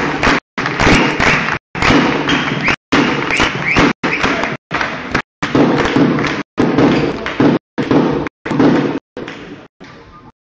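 Loud crowd noise in a sports hall, voices and thuds together, repeatedly broken by short stretches of dead silence from audio dropouts, and dying down near the end.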